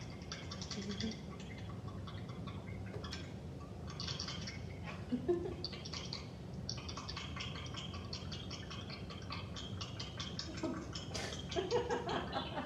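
Dice being shaken, a rapid rattle of clicks in repeated bouts, over a steady low room hum.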